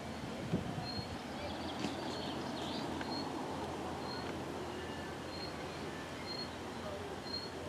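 Outdoor ambience: a steady rushing background, with a bird repeating a short high note about once a second and a few other chirps about two to three seconds in.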